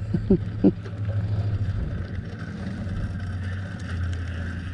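Bicycle riding steadily over concrete: a constant low rumble of wind on the handlebar-mounted microphone and tyre noise. Two short rising chirps come about half a second in.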